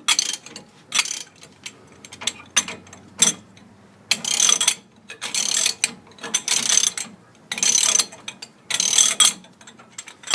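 Socket ratchet clicking in repeated back-strokes as a U-bolt nut is cranked loose: short bursts of clicks at first, then several longer runs of clicking about half a second each.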